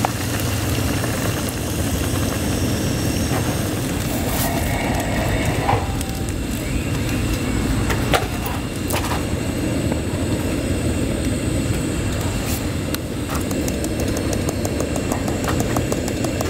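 Steady low rushing noise of a portable gas camp stove burner running under a pan of cream sauce, with a few light clicks and taps from the cooking.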